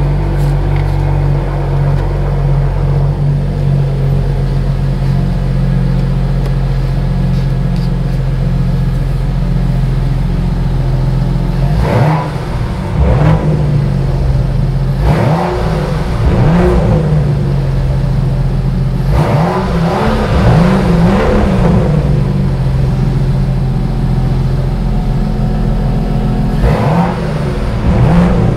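BMW M2 (F87) with the valved M Performance exhaust idling steadily, then revved in a series of short throttle blips, each rising and falling in pitch, from about the middle on, with a last one near the end.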